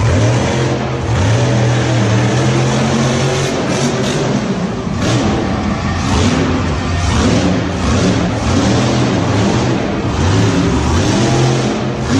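Car engine running and revving, its pitch rising and falling.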